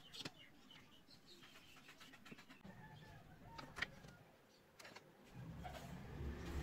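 Faint taps and knocks of wooden pieces being handled and set down on a cutting mat, with faint bird calls in the background. A low rumble builds near the end.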